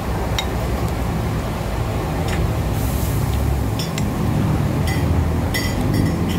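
Metal spoon and fork clinking and scraping on a plate of fried rice, several short light clinks, over a steady low rumble.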